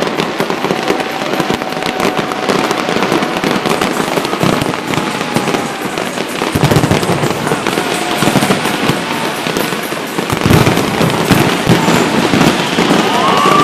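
A large fireworks display: dense, continuous crackling and popping from many shells, with heavier, deeper bangs coming in about halfway through and again near the end.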